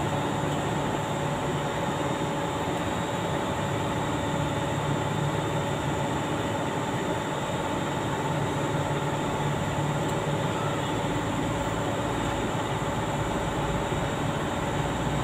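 Steady machinery drone with a low hum and several held tones, unchanging throughout, with no distinct knocks or starts.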